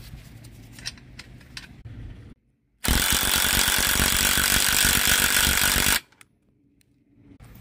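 Cordless impact driver with a socket hammering a strut's top mount nut down onto the shock shaft, running for about three seconds in a loud rapid rattle and then stopping abruptly.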